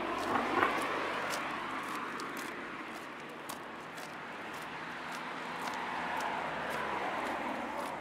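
Two cars pass by in turn, their tyre and engine noise swelling and fading with a sweeping whoosh: one peaks just after the start, and the other builds up and passes near the end. Throughout, a person's footsteps tap along at about two steps a second.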